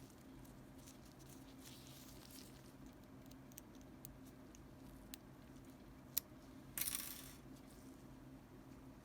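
Faint handling noises: scattered small clicks, one sharp click about six seconds in, and two short rustles, the louder near the end, over a low steady hum.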